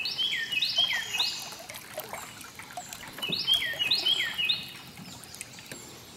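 A songbird singing a loud phrase of three quick repeated notes, then the same phrase again about three seconds later, over faint trickling and dripping of water from canoe paddles.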